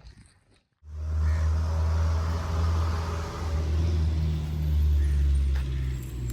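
A motor vehicle's engine running steadily with a deep, even drone, cutting in suddenly about a second in.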